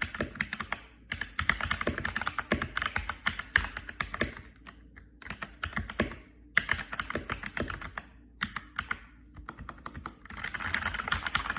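Custom mechanical keyboard with Akko Matcha Green switches, tape-, foam- and coin-modded, typed on at a fast-moderate pace: rapid runs of keystrokes broken by short pauses about a second in, around five seconds, and near eight seconds.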